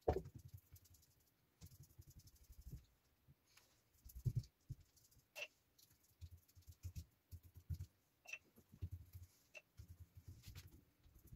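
Faint, irregular dabbing and rustling of a paintbrush working epoxy resin into carbon fibre cloth, with a few light clicks.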